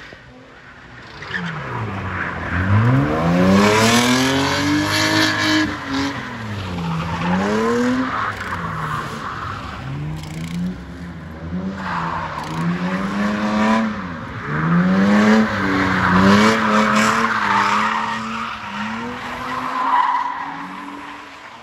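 BMW E36 320i's straight-six engine revving up and down again and again as the car drifts, with long stretches of tyre squeal. The sound falls away near the end as the car moves off.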